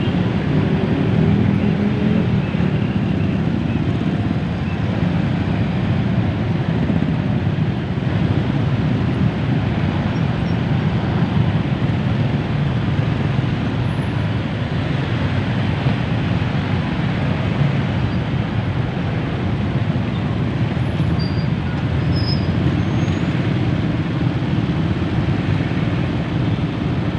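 Heavy, slow-crawling road traffic in a congested jam: vehicle engines and tyres making a steady low rumble.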